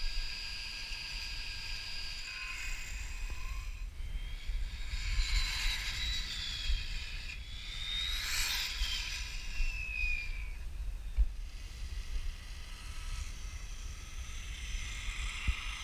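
High-pitched whine of an RC car's dual brushless electric motors on a speed run. It rises and falls in pitch several times, climbing sharply about eight seconds in and then sliding down as the car speeds past.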